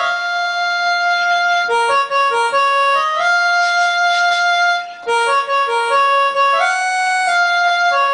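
Electronic keyboard played slowly, a melody of long sustained notes over held chords, in a reed-like organ voice without bass.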